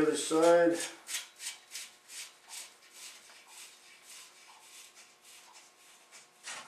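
Rapid, regular light metallic clicks, about three a second and growing fainter, from a hand tool turning the bolt through a steel spacer bushing in a motorcycle frame.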